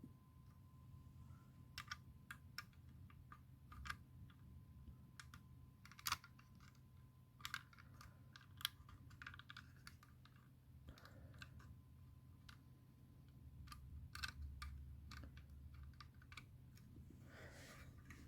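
Faint, irregular clicks and taps of puzzle pieces being handled and tried together, over a low steady hum.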